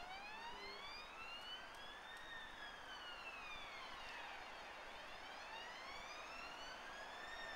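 An emergency vehicle siren on a slow wail, its pitch rising and falling in long sweeps of about two and a half seconds each way.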